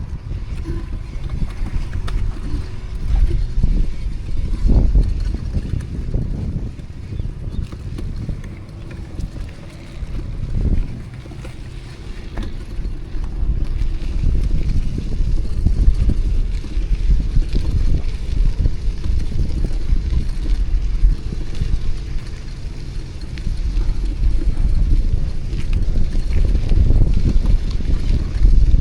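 Wind buffeting the microphone on a moving bicycle, a low rumble rising and falling in gusts, with city street traffic beneath it.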